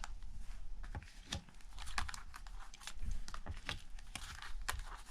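Lenormand cards from a Ciro Marchetti Gilded Reverie deck being turned over and laid down one at a time while searching through the deck: an irregular run of short clicks and slaps of card stock.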